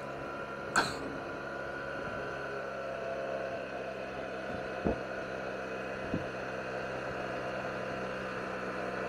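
Yamaha TMAX 560 maxi-scooter's parallel-twin engine running at a steady cruise, a steady hum with road noise heard from a camera on the scooter. There is a sharp click about a second in and two duller knocks around the middle.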